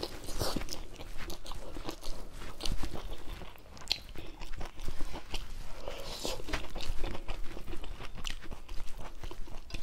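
Close-up eating sounds: a person chewing mouthfuls of rice with mushroom curry, many small wet clicks and crunches.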